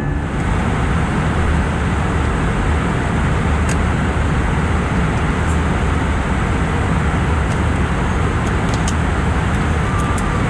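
Steady rushing cabin noise of an Airbus A319 in cruise, heard from a passenger seat, with a few faint clicks in the second half.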